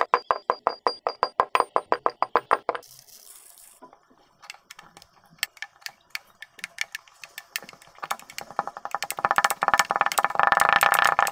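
Kinetic sand crunching and crackling as a wooden muddler packs it down inside a glass: fast runs of crisp clicks, sparse in the middle and densest near the end.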